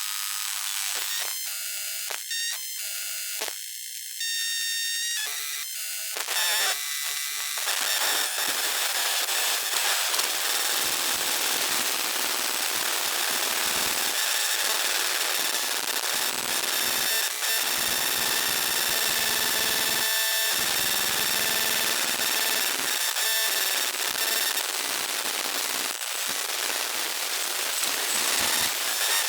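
Electromagnetic field sound effect: synthetic electric crackle and buzz with steady high whines. It stutters in choppy bursts for the first six seconds or so, then settles into a dense, continuous crackling hiss with a few brief dips.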